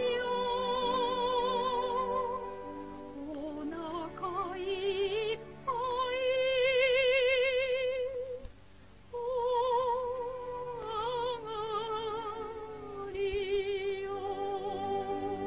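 Film soundtrack music: a high, wordless melody of long held notes with strong vibrato, rising in a glide early on and broken by a short pause about midway.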